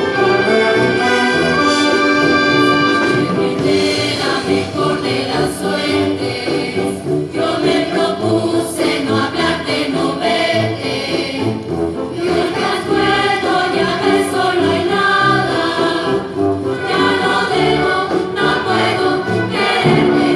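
Youth symphony orchestra playing with a choir singing over it.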